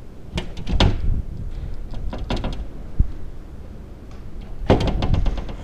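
Several short groups of knocks and clicks: a few near the start, more about two seconds in, one sharp knock at three seconds, and the loudest group near the end.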